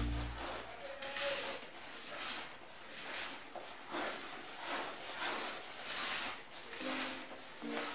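A utensil scraping and swishing through thick batter in a plastic mixing bowl, folding in beaten egg whites with short, repeated strokes about once a second.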